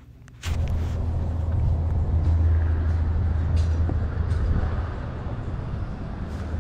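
Steady low rumble of a running engine, starting abruptly about half a second in and easing slightly after a few seconds.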